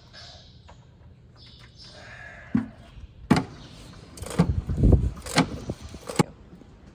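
A plastic bucket of drained engine oil is shifted about under a tractor. There are several sharp knocks and a rough scraping rumble partway through.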